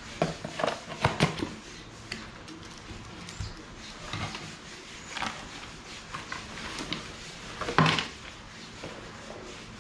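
Cardboard box and packaging being handled as a solar sensor light is taken out: rustling with a cluster of sharp knocks in the first second and a half, and a louder knock about eight seconds in.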